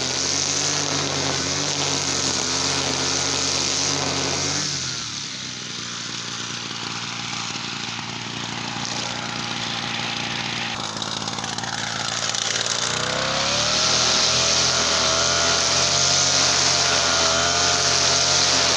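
Two-stroke TL33 brush cutter engine running at high speed. About four seconds in its speed and level drop to a rougher, lower running. Near thirteen seconds it revs back up and runs loud with a slightly wavering pitch.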